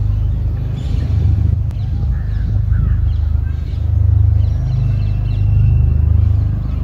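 Low, pulsing rotor thrum of a formation of four distant helicopters, swelling about halfway through and again near the end. Faint bird chirps sound over it.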